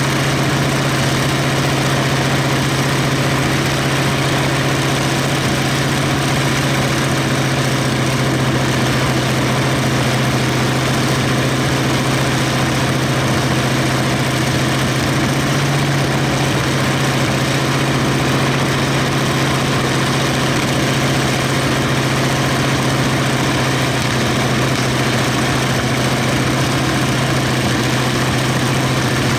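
Nine-cylinder 1000 hp radial aircraft engine running steadily on a test stand, with no change in speed.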